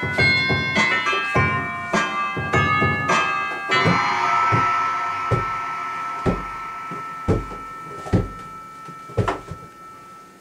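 Electronic keyboard played by hand: quick notes and chords, then a held chord from about four seconds in that slowly fades. Low thumps sound about once a second under the fading chord.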